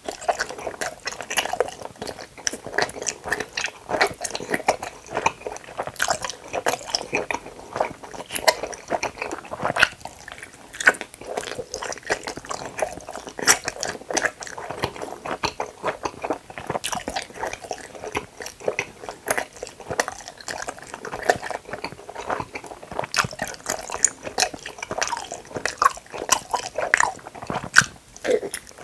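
Close-miked chewing of gummy hamburger jellies: a dense, continuous run of wet clicks and smacks from the mouth, with another bite taken near the end.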